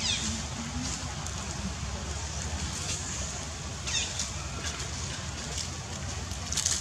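Macaques giving short, high-pitched squeals that fall in pitch, three times (at the start, about four seconds in, and near the end), over a steady low rumble.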